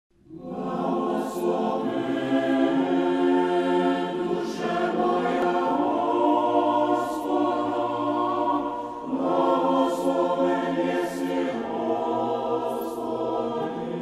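Choir singing choral music in long held notes, with short breaks between phrases about every three to four seconds.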